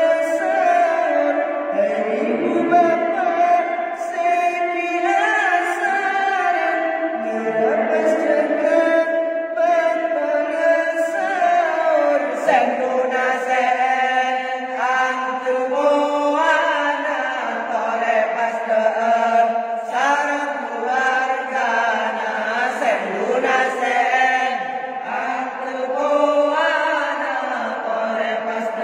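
Several men chanting together into a microphone, voices only, holding long, ornamented notes: a sahur chant, sung to wake people for the pre-dawn Ramadan meal.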